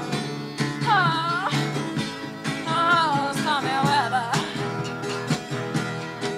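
A recorded song: guitar accompaniment over a steady beat, with a high melody line that swoops down and back up in pitch, twice.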